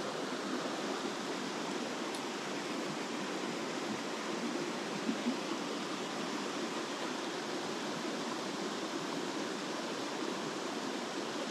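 Mountain stream water rushing steadily over rocks, an even hiss, with two faint taps about five seconds in.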